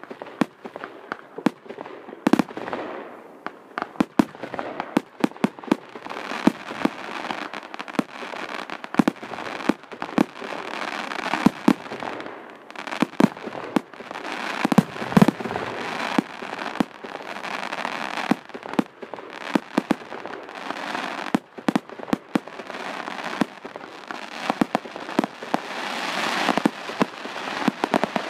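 Aerial fireworks going off: a fast, irregular run of sharp bangs from bursting shells, over a constant hiss.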